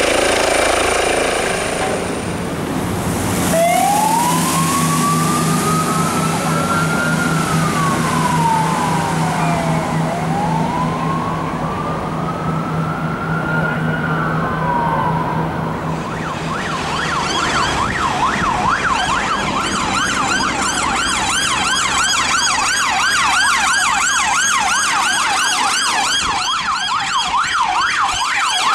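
Emergency vehicle siren sounding two slow wail cycles, each rising then falling. About halfway through it switches to a fast yelp.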